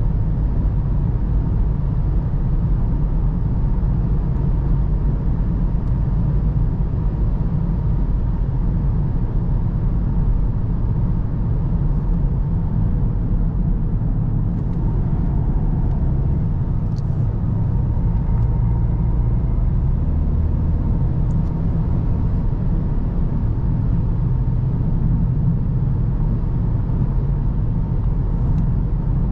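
2017 VW Golf GTD's 2.0 TDI four-cylinder diesel engine and tyres while driving at a steady speed. The sound is an even, low drone that holds steady throughout, with a faint steady tone above it and a few small clicks midway.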